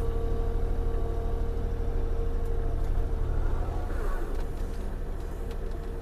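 Bobcat E42 mini excavator's diesel engine running steadily, with a steady whine over it that drops away about four seconds in as the engine note eases.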